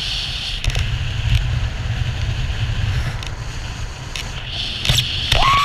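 Wind rushing over the camera microphone during a parachute canopy flight: a steady low rumble with hiss and a few brief knocks. Near the end a pitched tone starts, rising in a glide.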